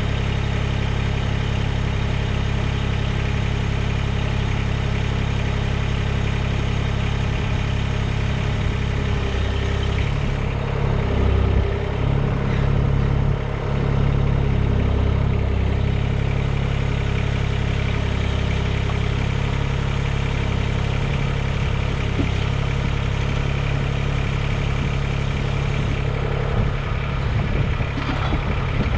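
Mahindra eMax 20s HST tractor's diesel engine running steadily. About ten seconds in it gets louder and uneven for several seconds, then settles back to a steady run.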